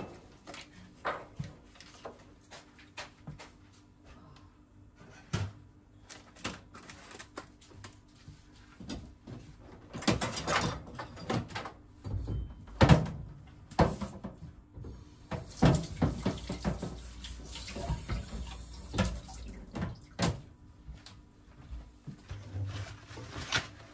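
Kitchen work noises: scattered knocks and clatter of a knife, utensils and dishes on a counter, with several seconds of steady rushing noise near the middle.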